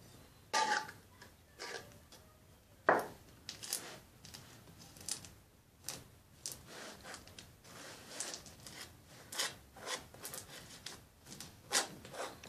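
Table knife spreading thick boiled condensed milk over a ridged wafer cake layer: irregular short scrapes and light clicks of the blade against the crisp wafer.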